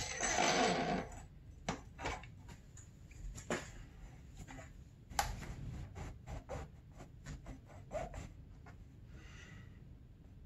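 Dirt bike fork tube being slid up through the aluminium triple clamps: a brief rubbing scrape at the start, then scattered light clicks and taps as the tube is worked into place.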